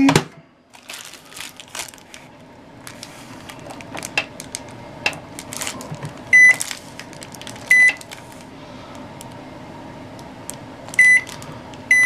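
Microwave oven door shutting with a click, a few light taps and clicks, then the keypad beeping as its buttons are pressed: four short high beeps, two around the middle and two near the end.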